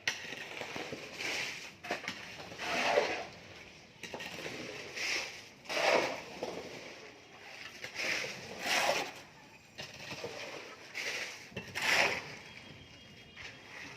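Repeated gritty scraping strokes of hand-tool construction work, such as a tool scraping through soil, sand or mortar, coming about once every one to two seconds and often in pairs.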